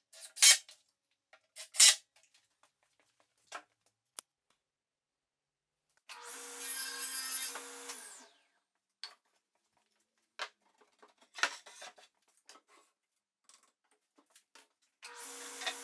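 Two sharp knocks, then a small power tool runs in two short bursts of about two seconds each, one in the middle and one near the end.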